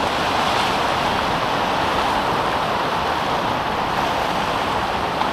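Sea surf and wind making a steady rushing noise, building slightly over the first second.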